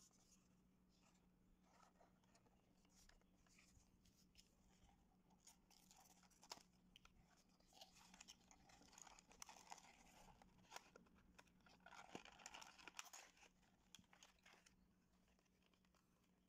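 Quiet handling of a small cardboard box and a clear plastic blister tray: scattered clicks and rustles that thicken into crinkling about halfway through, then die away near the end.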